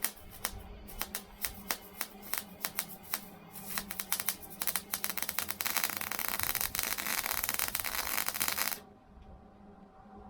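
Hobart Handler 140 wire-feed welder arc crackling in rapid, irregular pops, which thicken into a dense steady sizzle for the last few seconds of the weld and cut off suddenly about nine seconds in.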